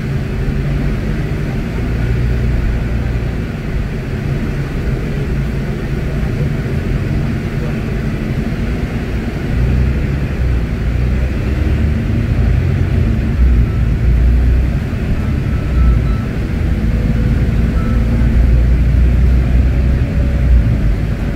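Volvo D8K diesel engine and running gear of a Volvo B8RLEA articulated bus, heard from the rear of the passenger cabin as the bus drives: a steady, low-pitched rumble. It grows somewhat louder after about nine seconds, with a faint rising whine in the second half.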